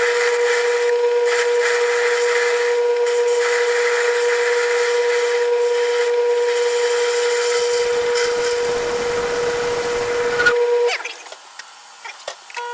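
1937 South Bend lathe running with a steady motor hum while a carbide tool is hand-fed into aluminum pulley stock, cutting a cable groove. A rougher cutting noise joins for a few seconds past the middle. The hum cuts out about a second and a half before the end, leaving a few light clicks.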